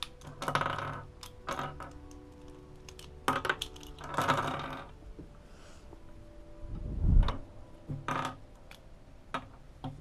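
Plastic pieces of a 3x3 speed cube clicking as they are pried off the core and clattering onto a wooden table, in quick irregular bursts. One dull thump about seven seconds in is the loudest sound.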